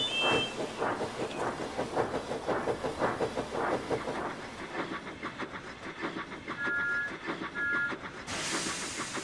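Steam locomotive chuffing in a steady rhythm. It opens with short high whistle notes, gives two short two-note whistle toots about seven seconds in, and ends with a burst of steam hiss.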